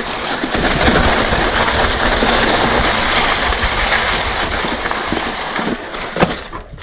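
Mountain bike riding down a dirt singletrack: rushing wind and tyre noise with scattered knocks and rattles from the bike over rough ground. The noise cuts off suddenly near the end.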